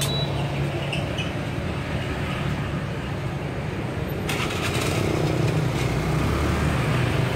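Street traffic dominated by motorbike engines running steadily, growing harsher and louder about four seconds in.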